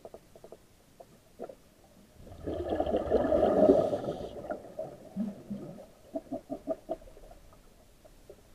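Scuba regulator exhaust heard underwater: a diver's breath going out as a burst of gurgling bubbles about two seconds in, lasting about two seconds. Faint clicks and knocks sound on either side of it.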